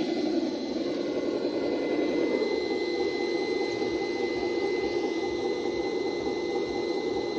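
Electric motors and gearboxes of radio-controlled scale crawler trucks, a Traxxas Defender among them, whining steadily as they climb, cutting off suddenly near the end.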